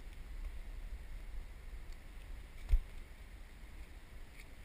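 Low rumble of wind and handling noise on the camera microphone, with one short thump a little past halfway.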